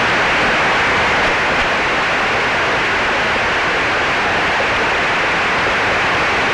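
A large audience applauding: dense, steady clapping.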